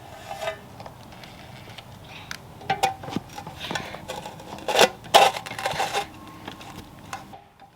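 Irregular clinks and knocks of hard objects being handled, several in a row with a short ring after each, loudest a little under five seconds in and again just after five.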